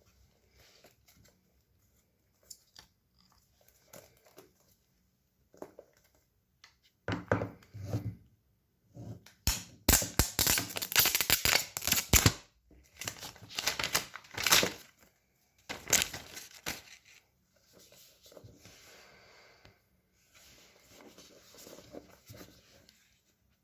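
Wrapping on an iPhone 11 box being torn off and crinkled: small rustles and clicks, then a few loud tearing bursts about halfway through, easing into softer rustling near the end.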